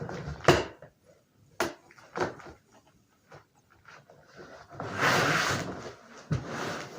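A cardboard box being handled and opened: several sharp knocks and taps, then a scraping, rustling stretch of about a second just past the middle.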